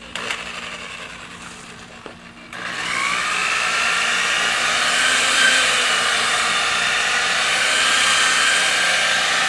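Electric orbital polisher with a foam finishing pad buffing wax off car paint: about two and a half seconds in, its motor spins up with a rising whine, then runs steadily at speed.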